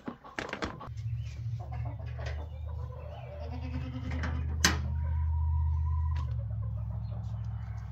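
A goat bleating and chickens clucking over a steady low hum that turns into a fast pulsing about three-quarters of the way through, with one sharp click a little before the middle.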